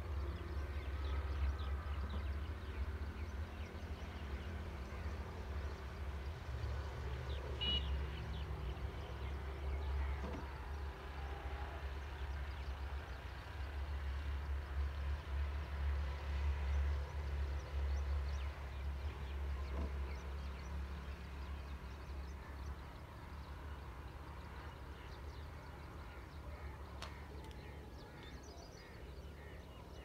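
Outdoor ambience dominated by a low, unsteady wind rumble on the microphone, with a few faint, scattered bird calls.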